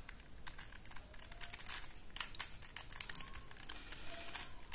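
Plastic layers of a QJ Super Square-1 puzzle cube being turned by hand, giving scattered, irregular light clicks.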